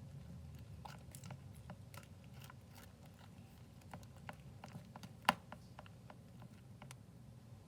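Slime being mixed, making small irregular clicks and pops, with one louder pop about five seconds in.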